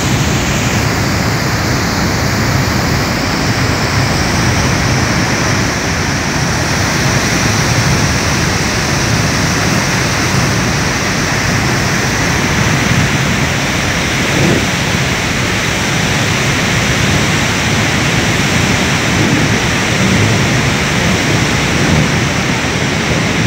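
Water discharging at full force from an outlet tunnel of Tarbela Dam: a loud, steady rush of spraying, churning water.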